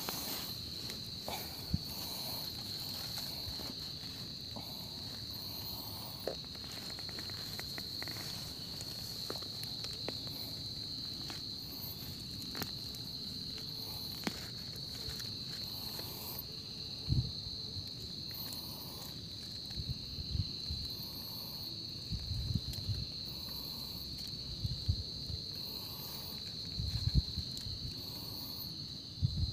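Night insect chorus: a steady high cricket trill, with short high pulses from another insect every second or two above it. From about halfway, scattered soft thumps and scrapes of hands working in the soil, picking mushrooms close to the microphone, grow more frequent near the end.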